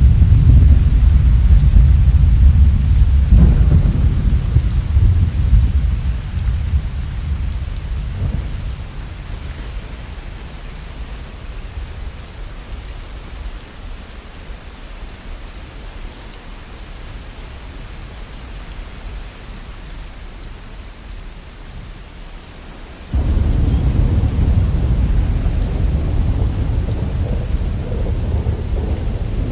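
Heavy rain falling steadily with a deep low rumble under it. The rumble fades away over the first several seconds, leaving the even hiss of rain, then comes back loud and suddenly about three-quarters of the way through.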